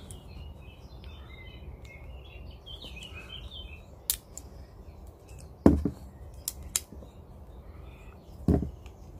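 A handful of short, sharp scrapes and knocks, about five, spread through the second half, as the back of a multitool's saw blade is struck down a ferro rod to throw sparks. Birds chirp faintly in the first few seconds.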